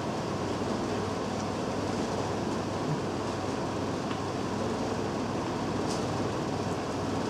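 Steady rumbling noise of a metro train in motion, with a couple of faint ticks.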